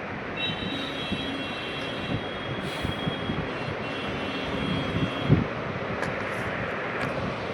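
Steady background traffic noise with a high, steady multi-tone sound held for about five seconds, like a vehicle horn, and a single knock about five seconds in.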